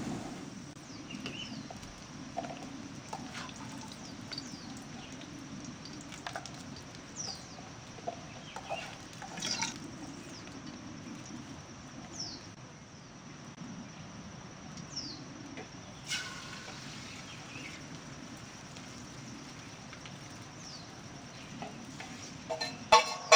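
Chickens clucking and chirping now and then, and near the end a few sharp ringing clanks of a metal spatula against a steel frying pan.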